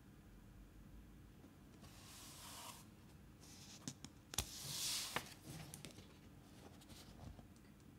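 Faint paper rustling as a book is handled: a soft rustle about two seconds in, then a few light sharp ticks and a second, louder rustle around the middle.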